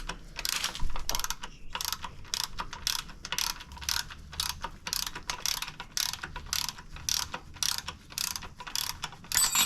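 Socket ratchet wrench clicking in quick repeated strokes, about three a second, working a bolt on the steering stem. Near the end a dropped metal Allen wrench rings out.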